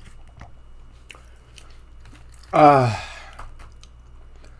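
A man chewing a mouthful of pizza and fried chicken, with small wet mouth clicks. About two and a half seconds in comes one short, loud vocal groan that falls in pitch.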